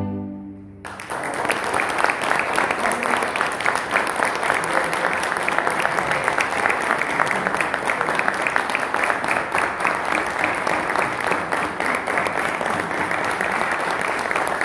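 The last chord of a string orchestra dies away, and about a second in an audience breaks into steady applause that keeps going.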